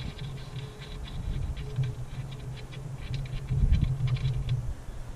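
Small irregular metal clicks and scrapes as a hand works the bolt and wing nut of a homemade tire bead breaker inside an alloy wheel rim, over a low steady rumble.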